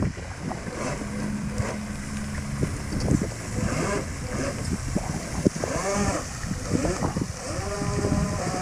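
Small radio-controlled boat's motor running out on the water, holding a steady pitch for a couple of seconds, then rising and falling a few times as the throttle changes. Wind buffets the microphone throughout.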